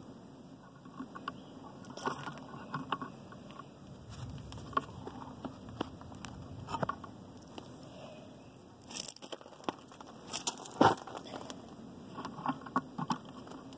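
Hand tools and parts being handled: scattered clicks, light knocks and scrapes with no steady rhythm, the sharpest knock about eleven seconds in.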